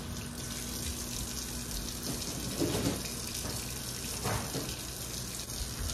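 Water running steadily from a kitchen tap into a sink.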